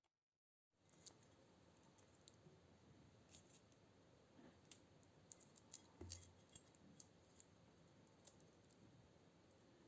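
Near silence: faint room tone with scattered light clicks.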